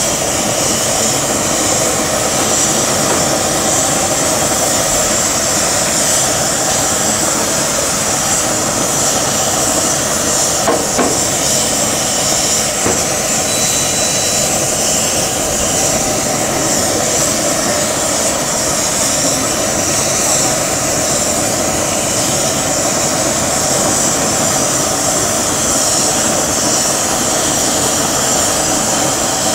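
Marinated steaks sizzling on a ridged cast-iron grill pan over a gas burner, a steady loud hiss with the burner's rushing roar underneath. A single short knock sounds about eleven seconds in.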